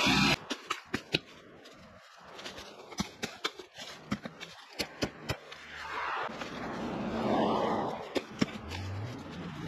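A string of sharp, irregular clicks and snaps, with a swell of noise about six to eight seconds in.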